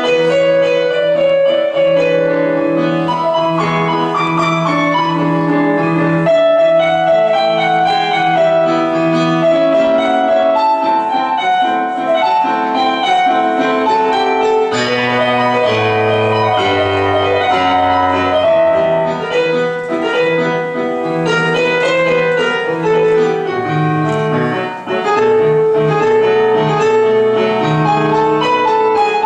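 Piano music playing continuously for a ballet dance, with a passage of deeper bass notes about halfway through.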